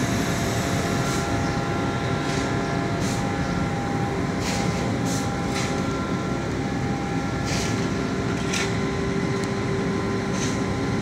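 Steady machinery noise with a constant hum, overlaid by short hissing bursts every second or so.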